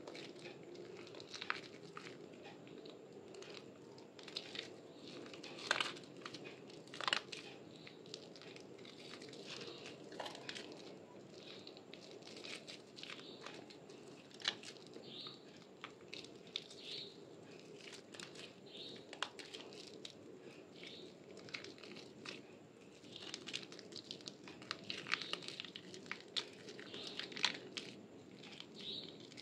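Soaked, mushy Asepso bar soap being squeezed and crushed in lathered hands: irregular wet squishes and crackling of soft soap and foam, with a few louder squelches.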